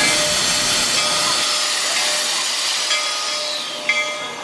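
Rio Grande steam locomotive passing and venting steam: a loud, steady hiss that fades away over about three seconds.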